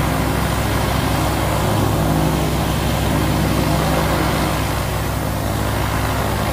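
Small single-engine propeller airplane's engine running steadily over a broad rushing noise, heard from inside the cockpit as the plane rolls out along a grass runway just after touchdown.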